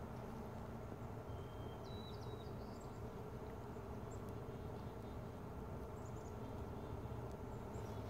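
Quiet outdoor ambience: a steady low rumble with a few faint, brief high bird chirps and whistles.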